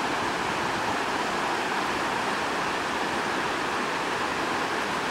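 Steady rushing of water pouring over a river spillway, an even unbroken roar with no change in level.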